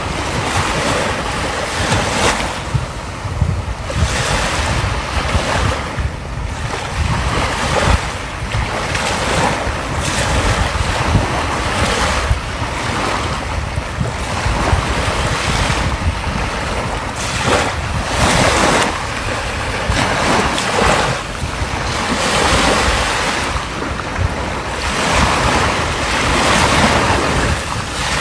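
Sea waves breaking and washing on the shore, swelling and easing every few seconds, with wind buffeting the microphone as a low rumble.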